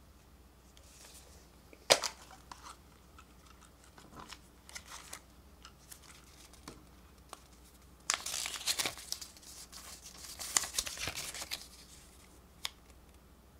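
A plastic capsule-toy ball snaps open with one sharp click, followed by small clicks and rustles as the contents are handled. Later comes a few seconds of paper crinkling as the folded leaflet from the capsule is unfolded, with one more small click near the end.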